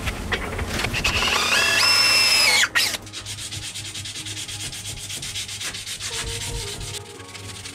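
Rubbing and sanding on wood by hand. A rising squeal runs through the louder first part and stops abruptly about three seconds in, followed by quieter, steady rubbing.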